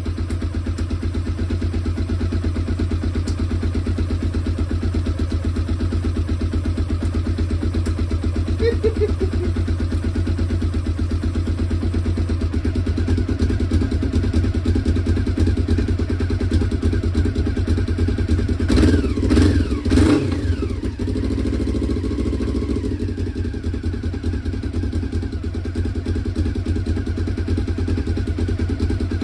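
1996 Honda CB500's liquid-cooled parallel-twin engine running at a steady idle. About two-thirds of the way through, the engine gets briefly louder and uneven.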